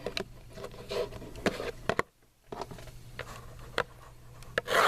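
Trading cards and their packaging being handled: scattered light scrapes and taps over a low steady hum, with a brief drop to near silence about two seconds in.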